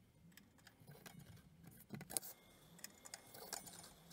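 Near silence with a few faint clicks and taps, the clearest a pair about two seconds in, from cardboard and tools being handled on a cutting mat.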